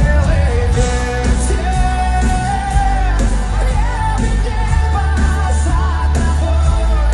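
Pop song with a sung melody over a backing track with heavy bass.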